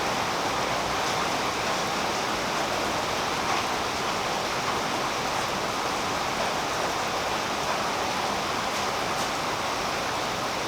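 Steady rain falling on tree foliage: an even hiss with a few faint drop ticks.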